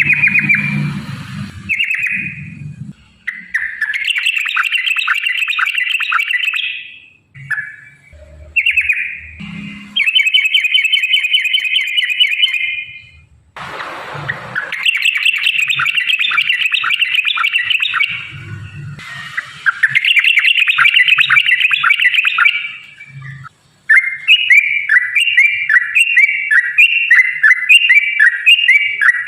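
Yellow-vented bulbul (trucukan) singing loudly in rapid, bubbling phrases of two to four seconds each, separated by short pauses, with a run of quick repeated chirps near the end.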